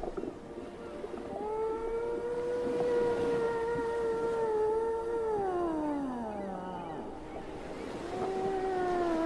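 Whale song laid over as a soundtrack: one long call held steady at first, then sliding down in pitch, and a second call starting near the end that also slides down.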